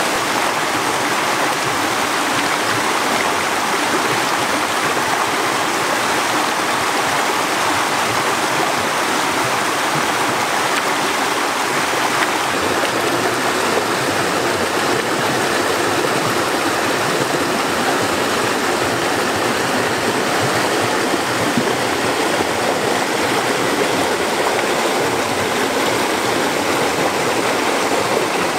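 Steady rushing of running stream water, an even noise with no breaks.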